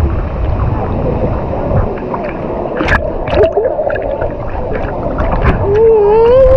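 Steady rush of falling and splashing water, with a few light knocks about halfway through. Near the end a voice gives one long wavering call.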